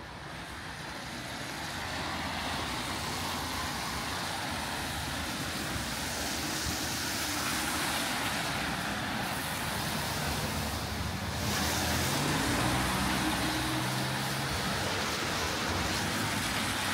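Road traffic on a rain-wet street: steady tyre hiss that builds over the first couple of seconds, with a vehicle's engine hum showing through about two-thirds of the way in.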